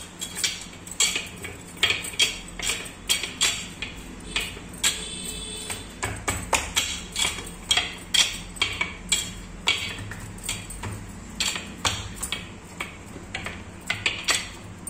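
Hands patting and pressing a thick cooked besan mixture flat on a steel plate, with bangles clinking and the plate tapping at each pat: irregular sharp clicks, roughly two a second.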